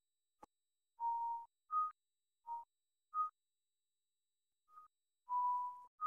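A string of about seven short electronic beeps at two alternating pitches, most very brief and two held about half a second, with silence between them; a faint click comes just before the first beep.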